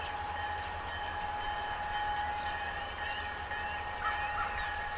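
Bell of an approaching EMD SD40-2 diesel locomotive ringing steadily over the low rumble of its engine. From about four seconds in, a bird calls several times.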